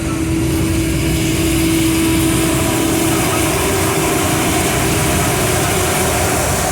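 Truck running at road speed: steady engine drone and road noise, with a held engine tone through the first half.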